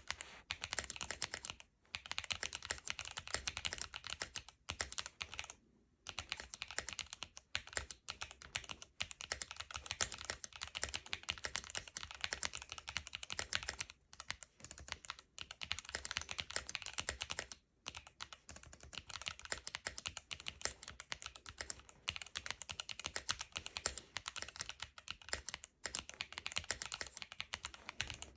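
Fast typing on an Epomaker Cidoo V65 mechanical keyboard with Quark Matte switches: a rapid run of keystroke clicks, broken by a few short pauses.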